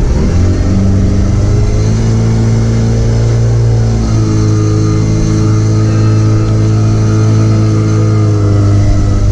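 A motor engine running loud and close, its pitch shifting up and down a few times.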